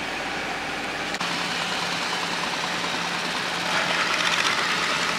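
The launch's big six-cylinder engine running steadily under way, with the hiss of water and wind over the bow growing louder about four seconds in.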